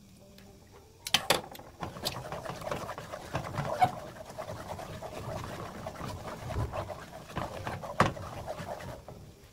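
Wooden spoon stirring and scraping a thick, simmering gochujang chili sauce in a nonstick pan. There are a few sharp knocks of the spoon against the pan, about a second in and again near the end.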